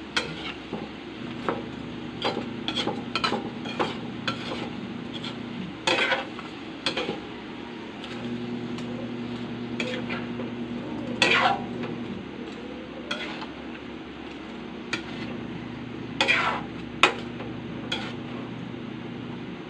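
Metal spatula scraping and knocking against a metal wok while stirring shrimp in butter garlic sauce, with repeated sharp clinks over a faint sizzle. A low steady hum comes and goes three times underneath.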